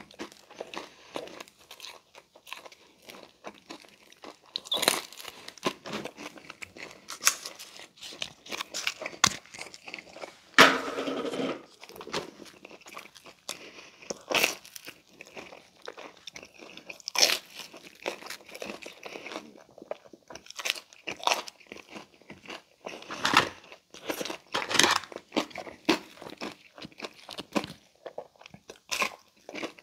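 Close-miked eating of a crisp Pizza Hut Melt: irregular bites, crunching and chewing with mouth clicks. A louder, denser stretch lasting over a second comes about ten seconds in.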